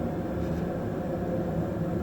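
Grundig electric kettle heating water toward the boil, a steady low rumbling hiss of water churning against the element.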